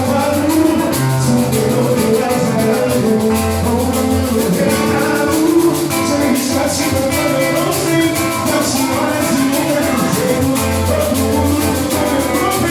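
Music from a batuque group: percussion struck in a steady rhythm under held pitched notes, with voices.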